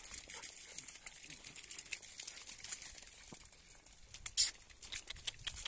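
Light rustling and scattered pattering of footsteps on wet grass, with one short sharp hiss about four seconds in.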